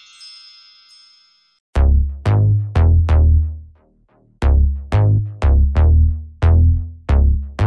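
Electronic intro music. A chiming tone fades out, then from about two seconds in heavy electronic bass-drum hits come in a stop-start rhythm, with a short break in the middle.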